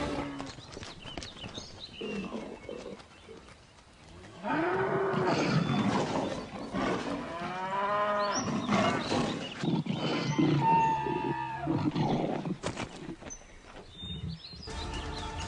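Bull bellowing in repeated loud, pitched calls while fighting another animal, with a quieter stretch after the first second before the calls pick up again.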